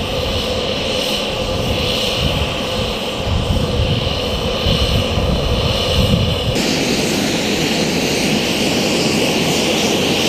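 Turbine aircraft engine running steadily with a high whine over a rumble. The sound changes abruptly about six and a half seconds in, where the low rumble drops away.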